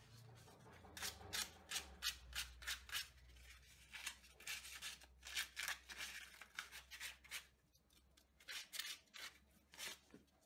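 A paper towel in a gloved hand wiping over an aluminium thumb screw and a swarf-covered lathe chuck: a quick run of faint, short brushing rasps over a low hum.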